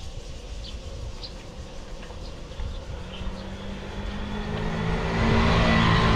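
A motor vehicle approaching and passing close. Its engine hum comes in about halfway and grows steadily louder into a rush of road noise near the end, over a low rumble.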